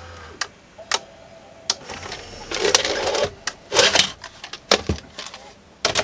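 Sharp VC381 VCR's tape mechanism working: a steady hum stops about half a second in, then come several sharp clicks and a run of short whirring, clattering bursts as the deck changes mode.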